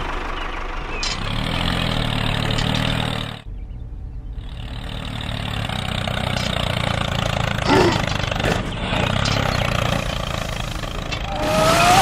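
Small tractor engine running steadily with a low chugging rumble. It cuts out briefly about three and a half seconds in, then resumes.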